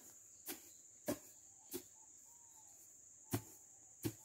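Long wooden pestle pounding dried onion seed heads in a wooden mortar to thresh out the seeds: about six dull thuds, a little over half a second apart, with a pause of about a second and a half in the middle. A steady high buzz runs underneath.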